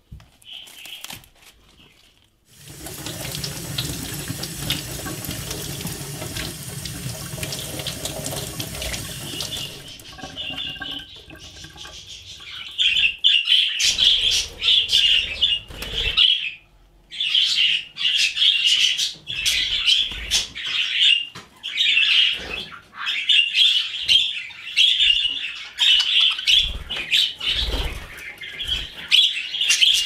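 A water tap runs for about seven seconds, then is shut off. Budgies then chirp and chatter in quick, repeated bursts through the rest of the time.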